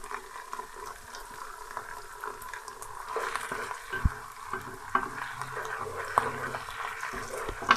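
Diced tomato and onions sizzling in hot oil in a karahi, stirred with a spatula that scrapes and taps against the pan several times in the second half.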